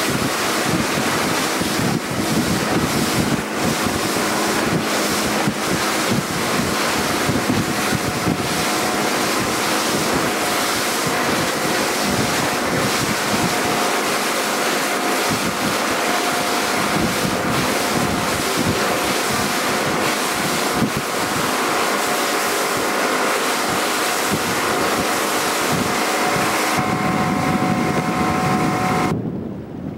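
Wind buffeting the microphone and sea water rushing past a motorboat under way, with a faint steady hum running underneath. The sound drops away sharply just before the end.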